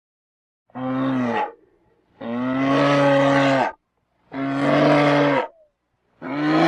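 Himalayan brown bear calling: a series of drawn-out, low, steady-pitched calls, each about one to one and a half seconds long with short silences between. The fourth call begins near the end.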